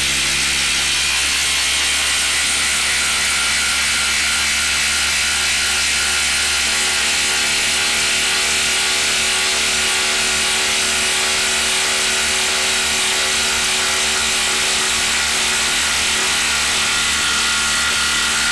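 Milwaukee Fuel cordless impact driver on its speed 3 setting, hammering continuously under heavy load as it drives a 10-inch lag screw into a wood stump. The sound stays at an even level without a break.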